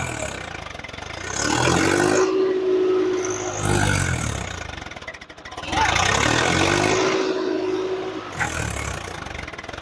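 Swaraj 855 FE tractor's diesel engine revving up twice, holding each time for about two seconds and then dropping off, as it strains against a disc harrow that it cannot pull.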